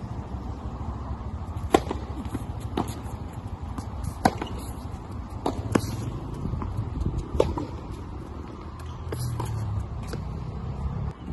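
Tennis balls struck by rackets and bouncing on a hard court during a serve and rally: a series of sharp pops about a second or more apart, the first and loudest almost two seconds in, over a steady low rumble.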